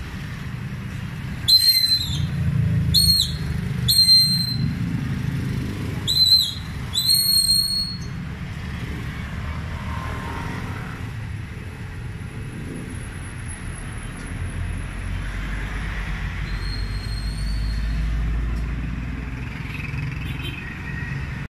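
Five short, high whistle-like chirps in the first eight seconds, over a steady low rumble like distant traffic that swells near the end.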